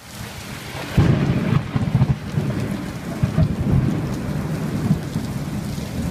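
Steady rain with rolling thunder. It fades in at the start, and about a second in a deep thunder rumble swells up and rolls on under the rain.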